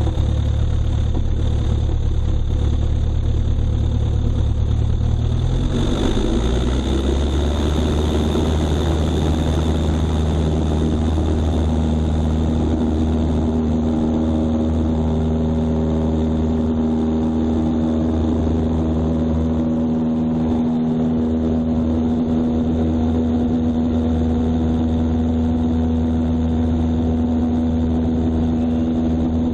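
A small plane's engine running at low power, then throttled up to full power about six seconds in for the takeoff roll. The pitch and rush of noise rise sharply and settle into a steady full-power drone as the plane lifts off and climbs.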